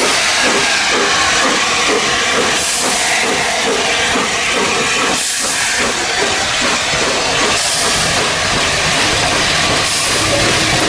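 Steam locomotive working, a loud continuous steam hiss over a fast, even beat of exhaust and running gear.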